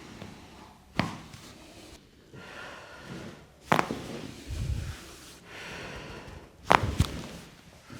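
Joints cracking during a chiropractic adjustment: sharp pops about a second in, near the middle, and a loud double pop near the end, with breathing between them.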